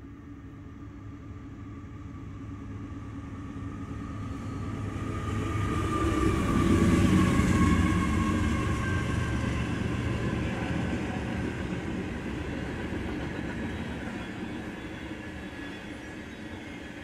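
CSX freight train led by GE diesel locomotives passing close by: the locomotive engines swell to their loudest as they go past about seven seconds in, with a tone sliding down in pitch, then the freight cars roll by as the sound eases.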